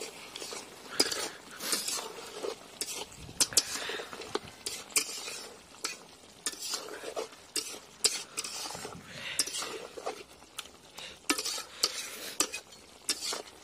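A metal spatula stirring chicken and potato curry in a metal kadai: irregular scraping and clinking of metal on metal, over a low sizzle of the curry cooking.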